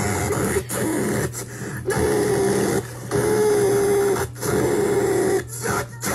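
A harsh, raspy Donald Duck-style voice squawking and screaming in about six loud bursts with short breaks between them, heard through a laptop's speakers.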